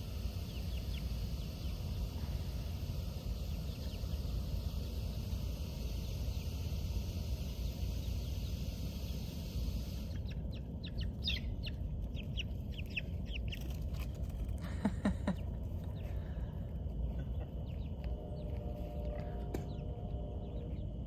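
Chicks peeping: short, high chirps, several close together in the second half, over a steady low rumble. A steady hiss in the first half stops abruptly about halfway through.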